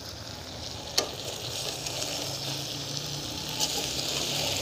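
Okra cooking with tomato and onion masala in an aluminium pot, sizzling steadily. A single sharp click comes about a second in.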